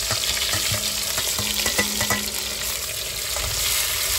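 Chopped onions and green chillies sizzling steadily in hot oil in a steel kadhai, with a metal spatula scraping and tapping against the pan as they are stirred.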